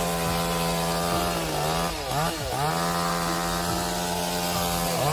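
Chainsaw engine running at high speed, a steady high buzz whose pitch drops and climbs back up twice: once around two seconds in and again near the end.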